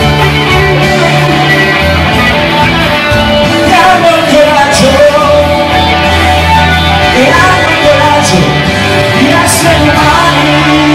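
Pop ballad played live: hollow-body electric guitar over a backing track with a steady bass line, and a lead melody that slides between notes in its middle part.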